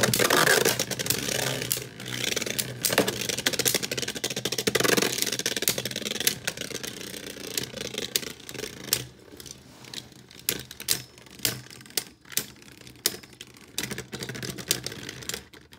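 Two Beyblade Burst spinning tops, Astral Spriggan and Savior Valkyrie, whirring and clattering against each other in a clear plastic stadium: a fast, dense rattle of clicks that thins into sparser, separate knocks in the second half.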